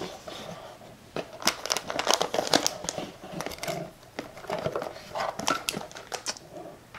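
Packaging being handled as a router box is unpacked: irregular crinkling and rustling with small clicks, spread over several seconds.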